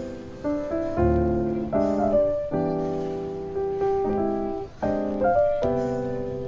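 Background piano music: soft chords, each struck and left to fade before the next.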